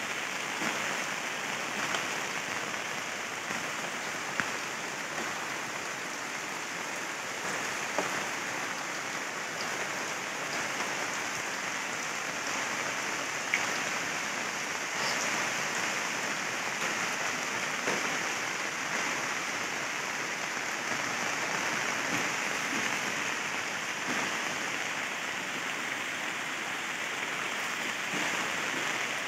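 Steady rain falling on floodwater, with a few faint knocks now and then.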